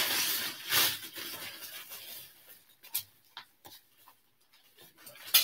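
A plastic shopping bag rustling and crinkling as items are pulled out of it, loudest in the first second, then a few faint clicks and rubs.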